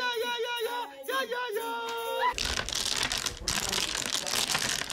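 A short melodic tune with held notes. About two seconds in it cuts off abruptly to a dense clatter of hard clicks: domino tiles being shuffled on a table, with voices underneath.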